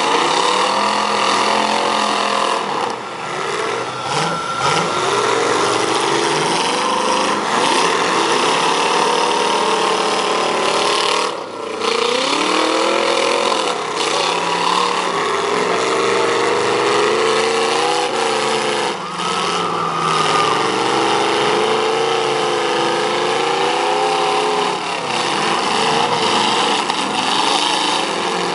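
Demolition derby car engines revving hard, their pitch rising and falling over and over as the cars drive and ram each other on the dirt track.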